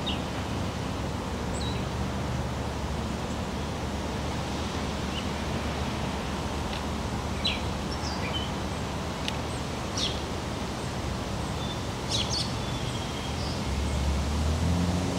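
Outdoor background noise with short scattered bird chirps. A low steady hum comes up near the end.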